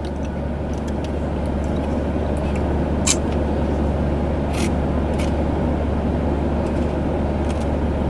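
Steady low hum of a car running, heard from inside the cabin, with a few faint clicks about three, four and a half and five seconds in.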